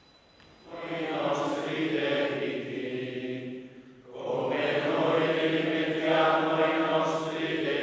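A group of men chanting a prayer together in unison, in two long sung phrases with a short breath about four seconds in.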